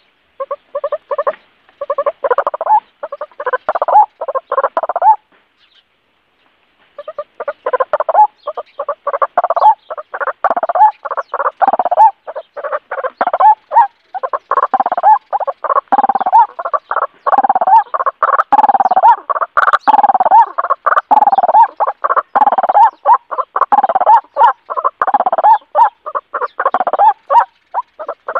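White-breasted waterhen calling: a fast, unbroken run of short, harsh repeated notes, stopping for about two seconds some five seconds in.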